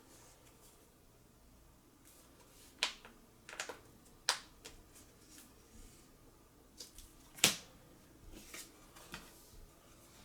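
Trading cards and their packaging being handled: a scatter of sharp taps and clicks as cards are picked up and set down, the loudest about seven and a half seconds in.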